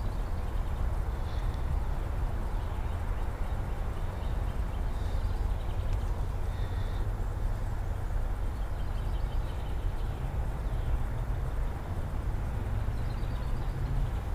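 Steady low outdoor rumble, typical of wind on the microphone, with faint short bird chirps now and then.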